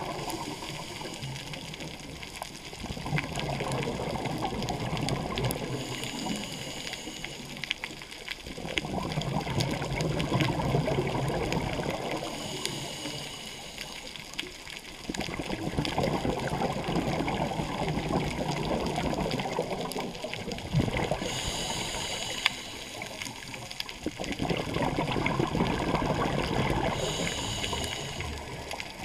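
Scuba regulator breathing underwater: slow repeated breaths, each a brief hissing inhale followed by several seconds of exhaled bubbles rushing and gurgling past the microphone, about four cycles.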